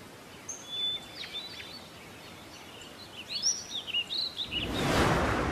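Birds chirping and twittering over a faint steady hiss; about four and a half seconds in, a rush of noise swells up and becomes the loudest sound.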